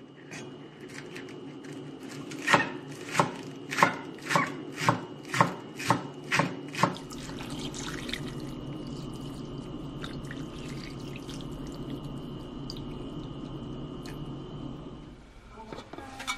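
A knife chopping green onion on a wooden cutting board, about nine even strokes at roughly two a second. Then water pours steadily into a metal pot for several seconds, and the pot's metal lid is set on near the end.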